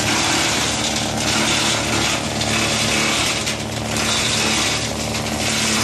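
Industrial clothes crusher running and shredding textile scraps. A steady motor hum lies under a loud grinding noise that swells and eases irregularly, about once a second, as the cloth is cut.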